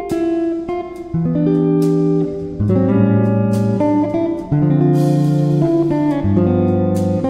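Background music: a guitar playing picked notes and chords.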